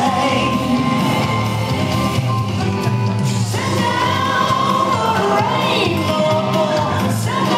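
Country song with a steady beat, playing for a line dance; a singing voice with long held notes comes in about halfway.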